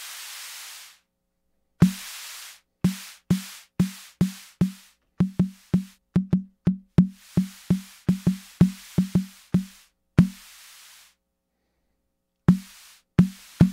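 AKAI Rhythm Wolf's analog snare drum voice played repeatedly, each hit a short low tone with a burst of noise. On the longer hits the noise holds at one level and then cuts off abruptly instead of decaying, which marks a simply gated noise source. The hits are sparse at first, come about three a second in the middle, then thin out.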